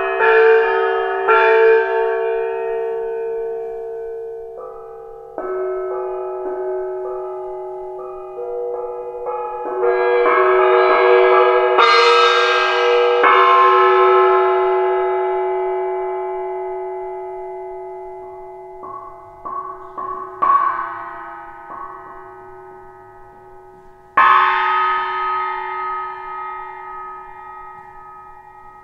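Metal struck by hand and ringing like bells: strikes at irregular intervals, each with several clear ringing tones that are left to die away slowly. The brightest and loudest strike comes about twelve seconds in.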